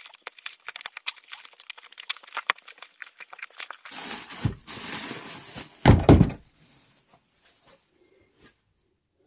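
A cardboard parcel being opened with a Fiskars knife. The blade scrapes and slices through packing tape in a quick run of scratchy clicks, then there is a longer rip of tape or cardboard, and a heavy thump of the box about six seconds in.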